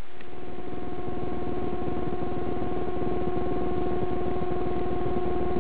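A steady electronic drone held on one pitch, with a fast buzzing pulse beneath it and no change in level.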